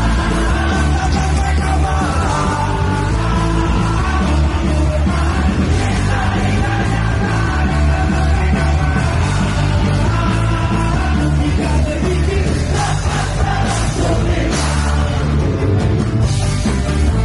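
Ska band playing live and loud: electric guitars and bass over drums, with a trombone in the horn line.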